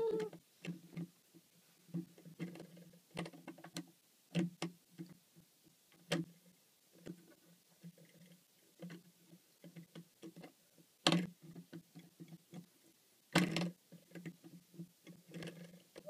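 Cavalier King Charles Spaniel puppy chewing and gnawing a metal door stopper: scattered small clicks and ticks of teeth on metal. A few louder clacks come about six, eleven and thirteen seconds in.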